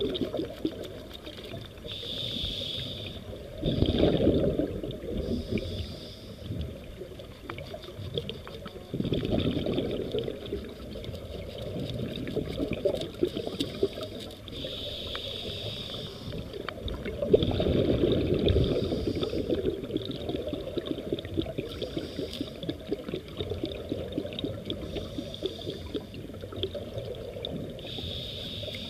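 Scuba diver breathing through a regulator underwater: short hissing inhalations and louder rumbling gushes of exhaled bubbles, a few breaths over the stretch, over a steady fine underwater crackle.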